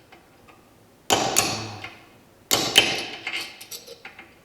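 Hammer blows on a small chisel cutting into the remains of a broken bolt: two clusters of sharp, ringing metal strikes about a second and a half apart, each trailing off into a few lighter taps.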